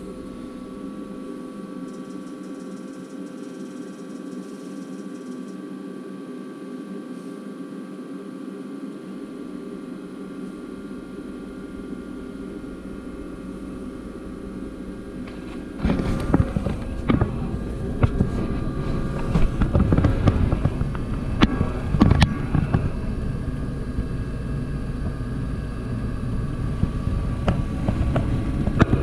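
Furnace draft inducer motor running with a steady hum after the bird-blocked flue pipe has been cleared. About halfway through, a much louder low rumble with irregular knocks suddenly sets in and continues.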